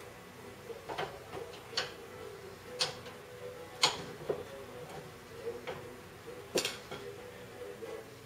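Irregular metallic clicks and taps from hands and tools working on a car's front hub and suspension: about seven sharp ones, unevenly spaced, the sharpest about four seconds in.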